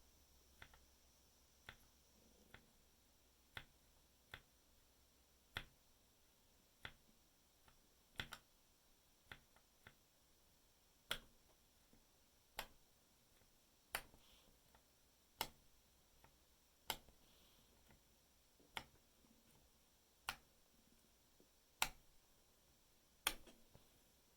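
Redragon K621 keyboard keys being pressed one at a time, about one sharp click a second and louder in the second half. Each click has the metallic sound on pressing and bottoming out that the owner counts as the keyboard's flaw.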